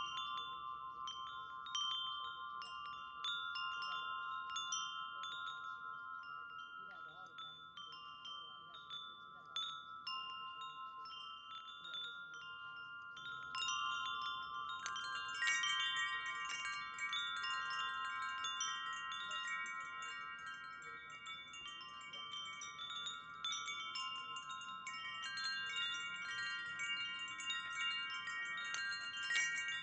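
Wind chimes ringing: irregular strikes of several pitches that ring on and overlap, growing busier and brighter about halfway through.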